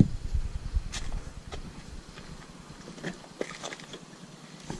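A few scattered footsteps on dry dirt and gravel, heard as separate short knocks.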